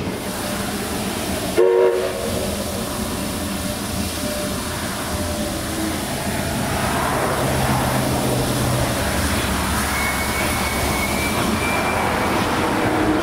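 Steam-hauled passenger train rolling along the rails, a steady clatter and rumble of wheels and cars, with a short loud whistle toot about two seconds in and a thin high wheel squeal starting about ten seconds in.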